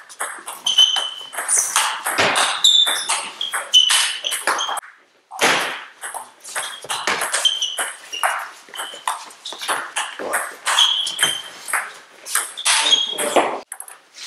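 Table tennis doubles rallies: the ball clicking in quick alternation off the rubber-covered bats and the table top, each hit with a short ringing ping. Two separate rallies, with a brief silent break about five seconds in.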